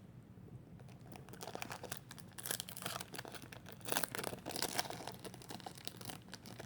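A trading card pack's wrapper being torn open and crinkled in the hands, an irregular run of crackling and ripping that starts about a second in and grows busier after that.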